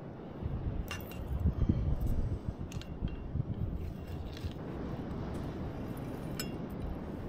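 A small metal shovel scooping sand and coals around a cast-iron camp oven, its blade knocking the pot in about five sharp metallic clinks, over a low wind rumble on the microphone.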